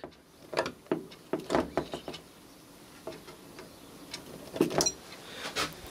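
Scattered light clicks and knocks of handling as ESR meter test probes are pressed onto capacitor leads on a TV circuit board for an in-circuit test. A brief faint high chirp comes near the end.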